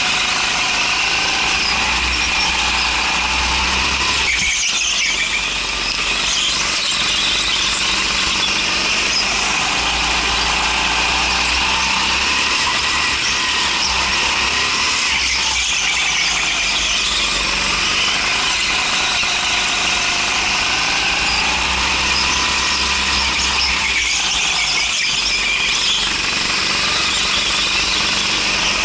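Go-kart running at speed, picked up onboard: a continuous tyre squeal through the corners over a steady low engine note, with no break.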